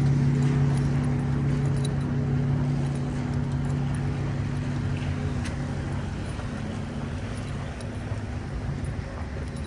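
A vehicle engine running nearby, its steady hum fading away over the first several seconds, with a few light clicks over a wash of outdoor noise.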